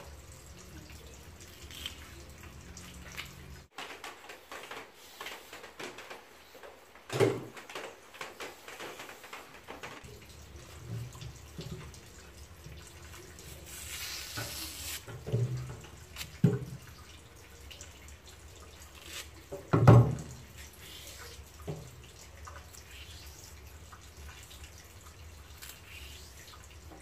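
Taro stems being peeled by hand and with a small knife over a stainless-steel sink: scattered soft scraping and tearing, with a few knocks on the sink, the loudest about twenty seconds in.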